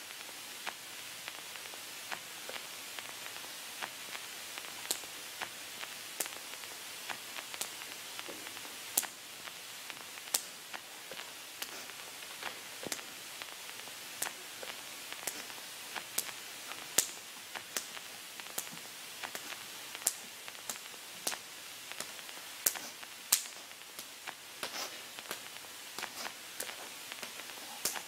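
Crackling static: a steady hiss with irregular sharp clicks and pops scattered throughout, a few of them louder.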